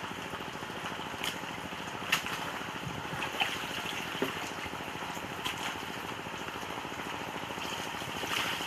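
Water trickling and dripping steadily, with a few sharper single drips.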